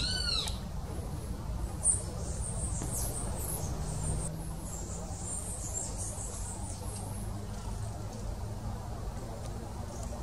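Outdoor ambience of thin, high chirps and squeaks from small animals, with one short arching call at the very start and a low steady rumble underneath. A single sharp click comes about two seconds in.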